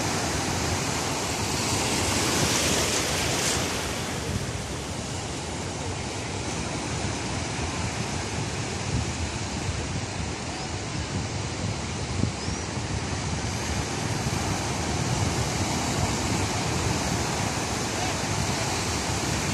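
Ocean surf: low waves breaking and washing up a sandy beach in a steady rushing wash, with one louder surge about two to three seconds in.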